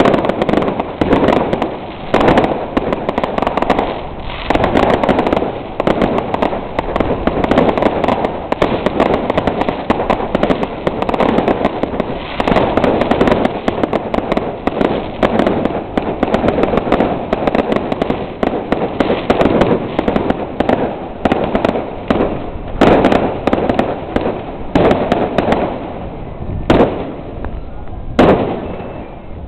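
Aerial fireworks bursting in a dense, continuous crackle of rapid bangs, which thins to a few separate loud bangs near the end.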